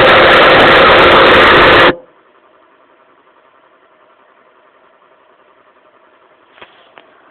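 Car-audio speakers played at extreme volume, the recording overloaded into a dense distorted blare. It cuts off abruptly about two seconds in, leaving a faint hum and two small clicks near the end.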